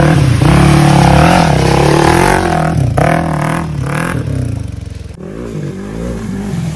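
Off-road motorcycle engine revving up and down with the throttle while the bike splashes through a shallow muddy stream.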